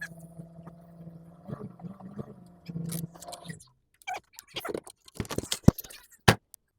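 A steady low hum that stops about three and a half seconds in, followed by sharp clicks and rustling with dead gaps between them: microphone handling noise as the mic is being switched on and set up.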